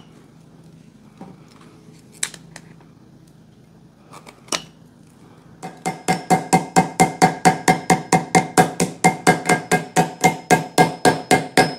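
A few sharp clicks from end-cutting pliers snipping copper rivet shanks. About six seconds in, a hammer starts peening a copper rivet on a steel anvil: a quick, even run of ringing metal taps, about three or four a second.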